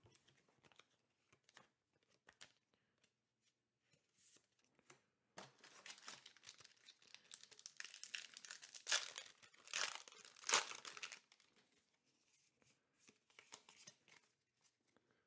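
Foil trading-card booster pack being crinkled and torn open, loudest in a burst of tearing and crinkling in the middle. Faint clicks of cards being handled come before and after it.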